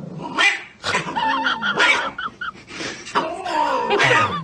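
A dog making a string of short pitched calls, their pitch bending up and down.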